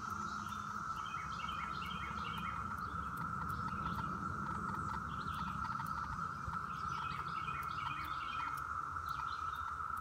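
Chorus of periodical cicadas (Magicicada, Brood X): the steady, even hum of many males' mating calls. A songbird's repeated chirping phrases come over it several times.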